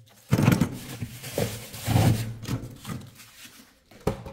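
Irregular rustling and knocking of kitchen items being handled, in uneven bursts, with a sharper knock near the end.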